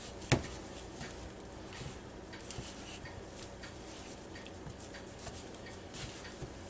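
Hands working a chicken thigh around in flour in a bowl: faint rustling with small scattered taps and one sharper click about a third of a second in, over a faint steady hum.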